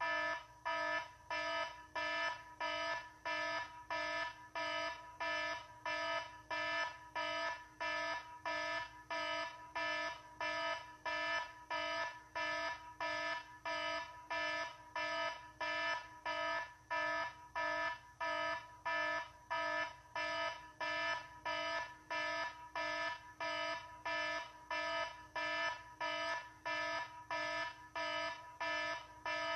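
Electronic alarm beeping steadily, about two short buzzy beeps a second, the same tone repeating without change.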